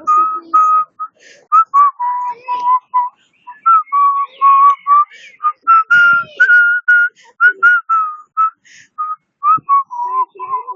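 A person whistling a tune: a long run of short, clear notes, each held at one pitch, stepping up and down like a melody.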